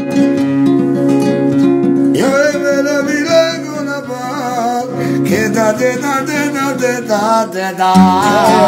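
Strummed acoustic guitar music. About two seconds in, a voice comes in singing a wavering, drawn-out melody.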